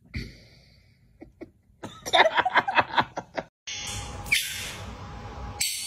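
A person laughing in a quick run of short bursts for about a second and a half, the loudest sound here. After a brief break it gives way to a steady hiss.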